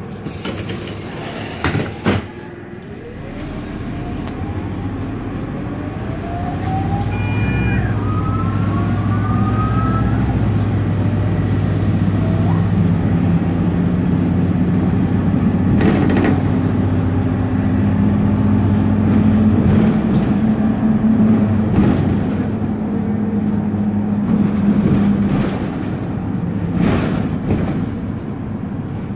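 Cabin sound of an Optare Solo single-deck bus driving along: a steady low engine drone that grows louder about four seconds in and shifts in pitch a few times as it picks up speed and eases off. There are a couple of rising whines and two sharp knocks from the bodywork.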